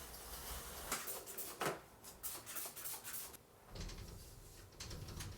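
A few light knocks and handling clatters, like things being moved or a drawer shutting, over a quiet room.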